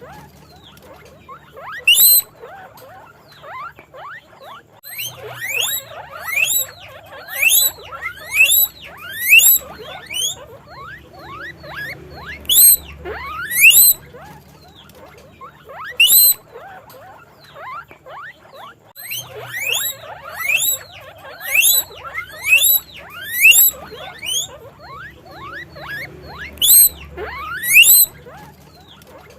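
Guinea pigs wheeking: loud, high, rising whistled squeaks, one after another at about one or two a second, in runs with short pauses between, some calls overlapping.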